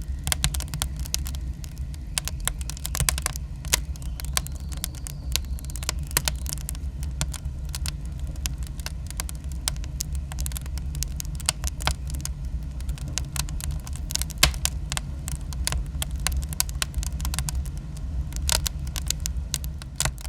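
Burning fire crackling: irregular sharp pops and snaps at random intervals over a steady low rumble of the flames.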